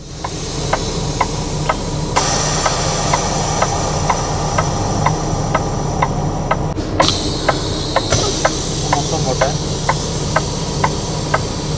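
Inside a Peterbilt semi-truck cab on the move: the engine runs steadily under a loud hiss that grows louder about two seconds in and changes again around seven seconds in. A sharp click repeats evenly about twice a second.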